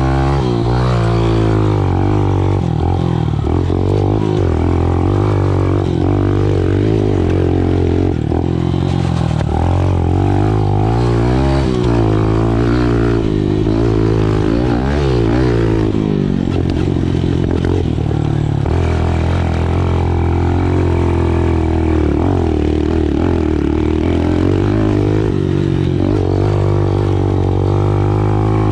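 Small 110 cc pit bike engine running under riding load, its pitch climbing and dropping over and over as the throttle is opened and shut.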